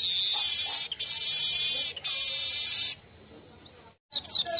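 Manyar weaver song: a long, loud, buzzy sizzling trill lasting about three seconds, broken twice by brief gaps, then after a short pause a few sharp chirps near the end.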